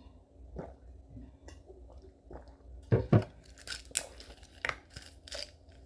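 A few faint gulps as someone drinks from a bottle, then about three seconds in two loud thumps as the plastic bottle is set down, followed by a run of plastic clicks and rustling as its lid and a small container are handled.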